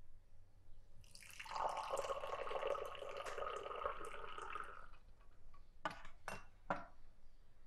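Tea poured from a metal teapot into a small glass, a steady splashing stream lasting about four seconds. Three short clinks follow near the end.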